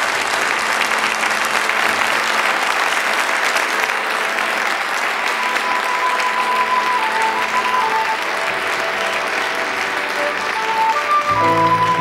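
Audience applauding steadily. About halfway through, the band begins a soft introduction with a few held high notes under the clapping, and fuller music with bass notes comes in near the end.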